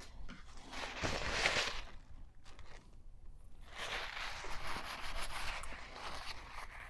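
Scraping and rustling handling noises in two stretches, about a second in and again from about four seconds in, as old hardened grease is worked out of the gear housing of a 1960s Singer 223 sewing machine.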